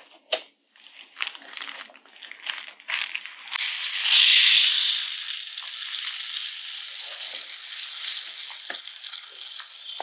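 Rustling and crinkling with scattered crackles, swelling to a loud, hissing rustle about four seconds in and then settling into a steadier, quieter rustle.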